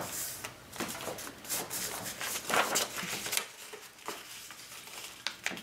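Construction paper rustling and sliding in short, irregular bursts as it is folded and creased by hand.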